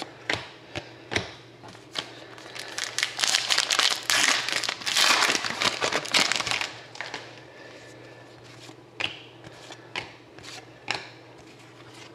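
A Panini Contenders hockey card pack's wrapper crinkling as it is torn and pulled open, in a dense stretch of about four seconds. Scattered sharp clicks and taps of cards being handled come before and after it.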